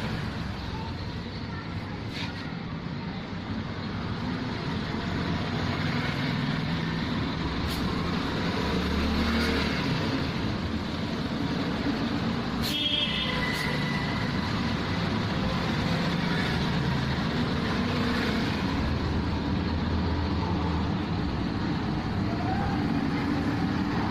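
Road traffic noise: vehicle engines running and passing, a continuous low hum that swells and fades. A short high squeal comes a little past the middle.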